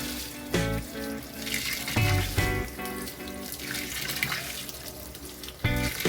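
Water running steadily into an LG 8 kg washing machine as it fills, heard under background music with sustained notes that change every second or two.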